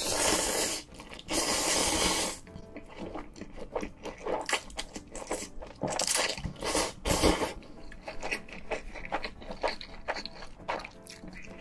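Close-miked slurping of spicy instant noodles: two long loud slurps at the start and more around six to seven seconds in. Between them comes a run of wet chewing clicks.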